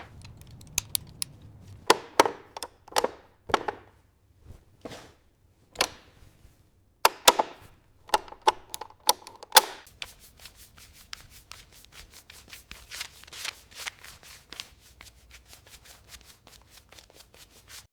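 Irregular sharp metallic knocks and clicks, several ringing briefly, then from about halfway a fast, even run of lighter clicks.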